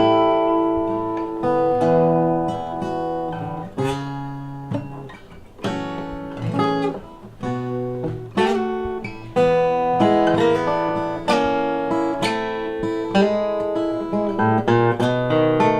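Acoustic guitar playing a blues tune, with plucked notes and chords ringing over held bass notes.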